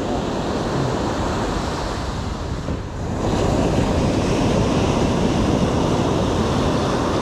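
Ocean surf breaking and washing up the beach, with wind buffeting the microphone. The wash dips briefly and then swells louder about three seconds in.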